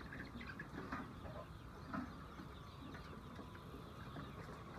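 Chickens clucking faintly in short, scattered calls over a steady background hum.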